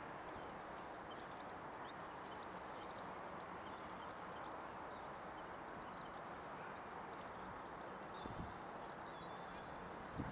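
Quiet outdoor park ambience: a steady background hiss and hum with small birds chirping throughout. A few soft thuds come near the end.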